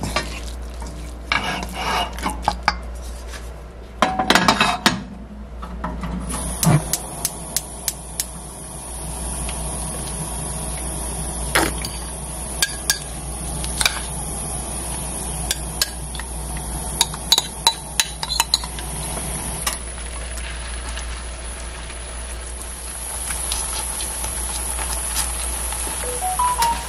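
Wooden spatula stirring and tapping in a nonstick pan, making sharp clicks and scrapes. After several seconds, hot oil starts a steady high sizzle that lasts to the end, and a shrimp and green onion batter pancake fries in it under more spatula clicks.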